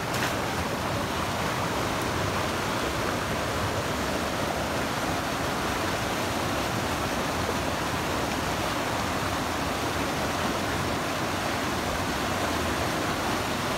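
Steady rush of stream water.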